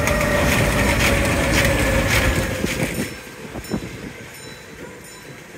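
Alpenexpress Enzian steel roller coaster train running past on its tubular track: a loud rumble with a steady whine that slowly falls in pitch. It fades away after about three seconds.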